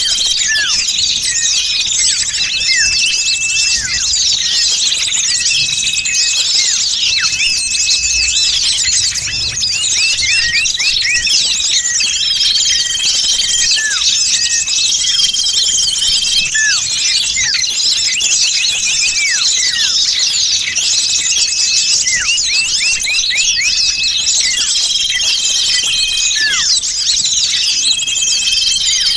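Dense chorus of many small songbirds chirping and calling without a break, with a long steady whistled note repeating about every two seconds. It is a bird-luring recording of noisy small birds, played to draw wild birds in.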